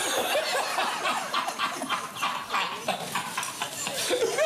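A person's voice making a quick run of short, animal-like non-speech sounds.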